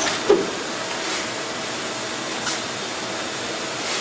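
Steady rushing hiss of a Hardinge T42 CNC lathe running, with one short knock about a third of a second in and a couple of faint clicks later.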